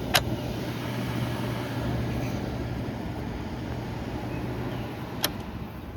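Mid-1950s Fedders-built window air conditioner running with a steady hum and fan rush while its control knob is switched, a sharp click just after the start and another about five seconds in. The hum gradually dies away near the end.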